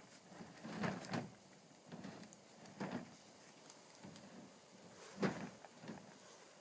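A few irregular knocks and clunks, the loudest about five seconds in.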